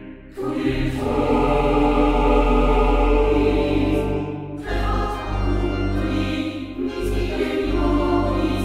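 Slow choral background music of long held chords, with a short dip at the very start and new chords coming in about half a second in, midway through and near the end.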